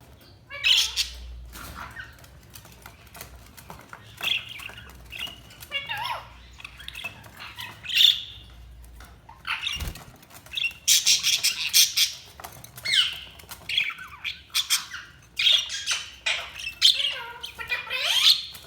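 Pet budgerigars chirping, many short calls gliding up and down in pitch. The calls are scattered at first and become busier and louder from about eleven seconds in.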